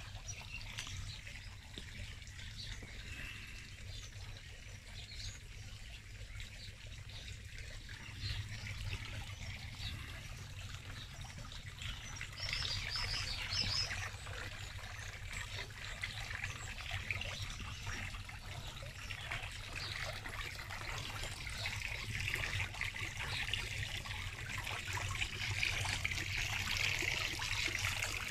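Water trickling and splashing from a tiered stone garden fountain, a steady sound that grows louder in the second half.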